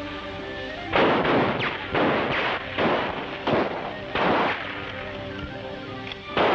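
A rifle gunfight: about six rifle shots, irregularly spaced, each a sharp crack with a short ringing tail, over background music.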